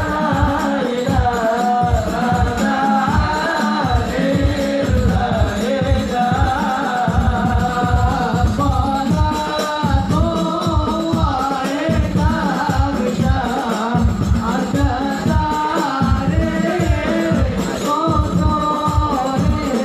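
Men singing an Arabic devotional song (sholawat) together in unison, over frame drums keeping a steady beat.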